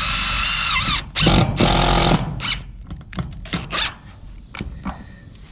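DeWalt 20V cordless drill driving sheet metal screws with neoprene washers through chimney flashing into a metal roof. A steady motor whine drops in pitch about a second in as the screw seats. A second, louder burst of about a second follows, then a few light clicks and taps.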